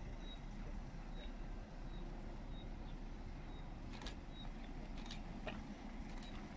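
Steady low outdoor rumble, with a faint short high chirp repeating about every three-quarters of a second and a few sharp clicks in the second half.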